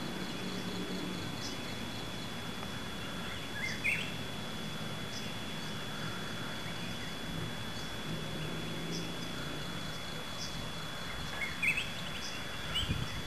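Rural outdoor ambience: a steady background hiss with a continuous thin high-pitched whine, and short rising bird chirps about four seconds in and again near the end.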